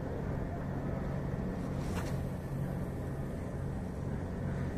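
A steady low engine drone.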